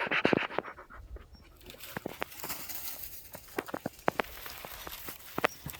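Footsteps on dry ground, with scattered, irregular light crunches and snaps.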